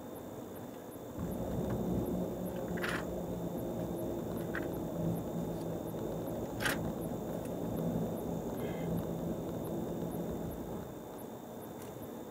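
Car driving, with steady road and engine noise. The low engine hum swells about a second in and drops back near the end, with a few sharp clicks or knocks along the way.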